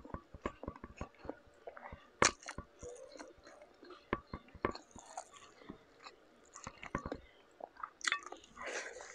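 Chewing of shell-on shrimp by mouth, with irregular wet clicks and crunches, the sharpest about two seconds in, and a softer smacking as a handful of rice goes into the mouth near the end.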